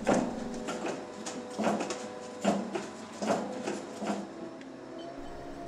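A hydraulic press working in regular strokes, six of them a little under a second apart over a steady hum, as it pushes heavy concrete tower half-shells the last centimetres together.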